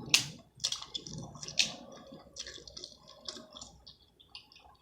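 Wet, squishy clicks and crackles of saucy seafood-boil crab legs and shrimp being handled and eaten close to the microphone, with the loudest snap near the start.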